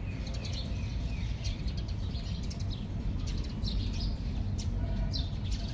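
Small birds chirping repeatedly in quick, scattered bursts, over a steady low background rumble.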